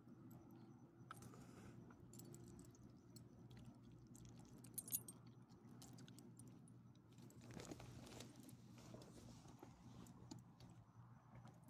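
Faint jingling of small dogs' metal collar tags and leash clips, with scattered small clicks as the dogs take treats from a hand; one sharper click about five seconds in.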